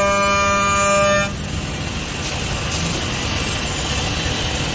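Four-axis CNC woodworking machining center running, its spindles giving a steady high whine of several tones together that stops abruptly about a second in. A steady rushing machine noise carries on afterwards.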